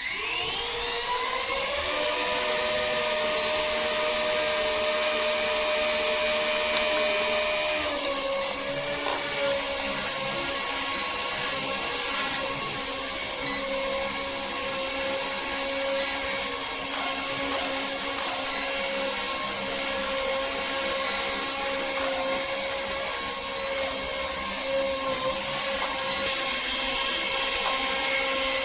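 Small RC helicopter's brushless main motor and rotor spinning up with a rising whine over the first two seconds, then running at a steady high whine. The pitch dips slightly about eight seconds in.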